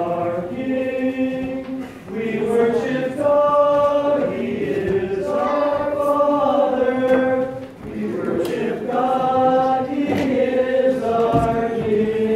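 A group of voices singing a Byzantine-rite liturgical chant in long, held phrases, with brief breaks about two seconds in and again near eight seconds.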